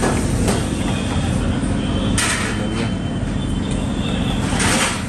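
A steady low engine rumble, with two short bursts of hiss about two seconds in and near the end.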